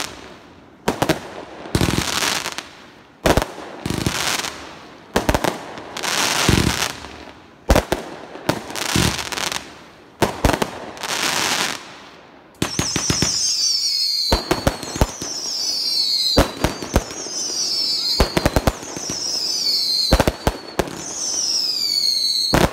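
Aerial fireworks firing shot after shot, each sharp bang followed by about a second of crackling. From about halfway on, the shots each trail a high whistle that falls in pitch, roughly one every two seconds.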